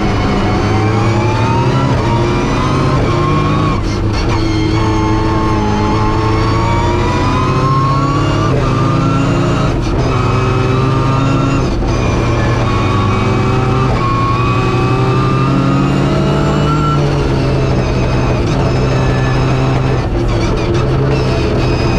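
Rally car engine heard from inside the cockpit, revving hard and rising and falling in pitch as it is driven flat out along the stage. There are several brief breaks at gear changes.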